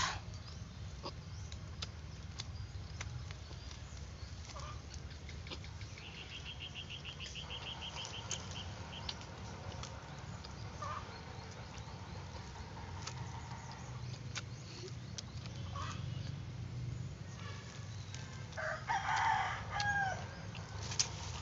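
A rooster crowing near the end, a short call with bending pitch. Earlier, a brief fast ticking trill and scattered small clicks over a steady low background hum.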